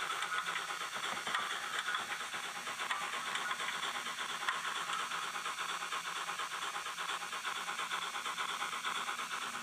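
Steam-locomotive sound from the DCC sound decoder of a Fleischmann H0 model of a DB class 86 tank engine: a steady hiss of steam with a fast, even pulsing running through it.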